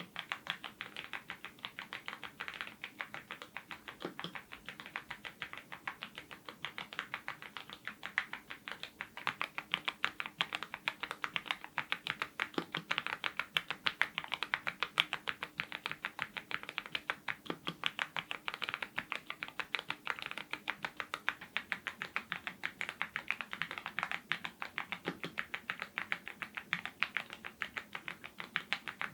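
Fast, continuous typing on a YUNZII IF99 full-size mechanical keyboard fitted with lubed Gateron Ink red linear switches. The keystrokes are dense and even, with an occasional deeper stroke every few seconds.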